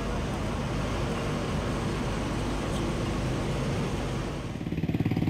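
Steady rushing noise aboard a boat at sea, its engine and the wind. About four and a half seconds in, this gives way to a small engine running nearby with a fast, even puttering.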